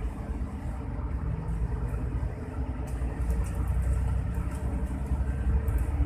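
Steady low engine and road rumble heard from inside the cabin of a moving coach bus, growing somewhat louder about halfway through, with a few light rattles.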